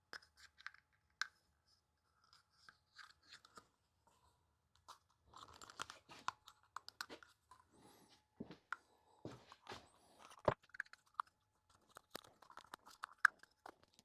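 Irregular clicking, scraping and rustling, with a few sharper knocks, as a router bit and small parts are handled and fitted back into a tool case.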